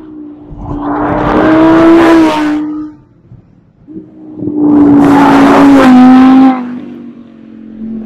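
2016 Audi R8's V10 engine at high revs as the car goes by at speed, twice. Each pass swells to full loudness with a steady high engine note and then cuts off sharply; the second pass steps down in pitch just before it ends.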